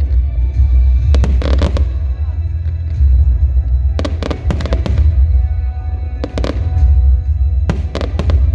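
Aerial fireworks bursting in quick clusters of sharp bangs, a cluster every two to three seconds, over music and a steady low rumble.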